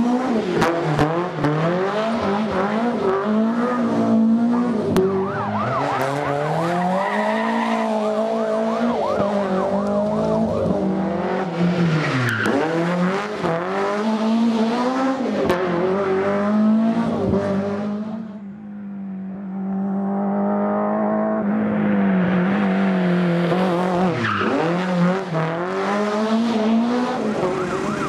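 Rally car engines revving hard as the cars pass at speed, the pitch climbing and then falling back at each gear change or lift, with a brief dip in the noise about two-thirds of the way through.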